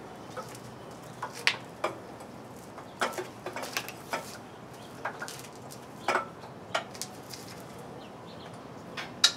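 Scattered clicks and knocks, about eight spread over several seconds, from handling a power cord and adjusting a DeWalt sliding miter saw by hand. The saw's motor is not running.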